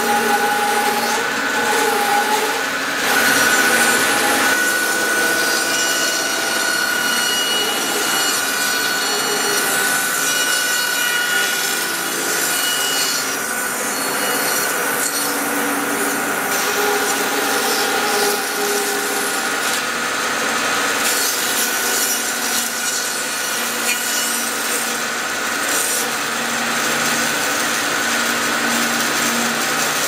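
Band saw ripping a cedar log lengthwise: a steady sawing sound throughout. The blade runs freely without binding, because the stress in the wood lets the cut open up.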